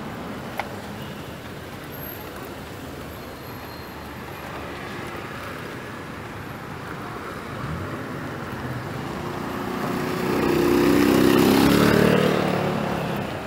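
Street traffic, with a motor vehicle passing close by: its engine rises about ten seconds in, is loudest for a couple of seconds, then fades.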